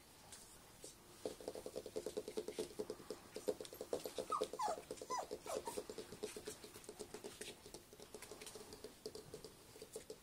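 Four-week-old Samoyed puppies: from about a second in, one makes a fast, even run of low grunts. A few short, high whimpering squeaks come about four to five seconds in, and there are light clicks from little feet on the parquet.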